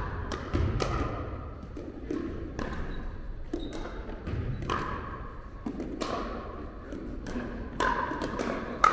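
Pickleball play: paddles striking the plastic ball and the ball bouncing on the court, many sharp pops at irregular intervals, the loudest one near the end.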